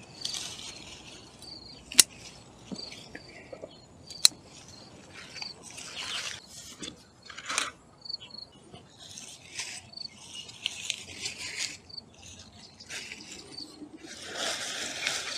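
Lettuce leaves rustling and crackling as heads of leaf lettuce are picked by hand, with two sharp clicks about two and four seconds in. Faint, high insect chirps repeat in the background.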